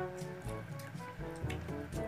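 Background music: a melody of short notes over bass notes and a light beat.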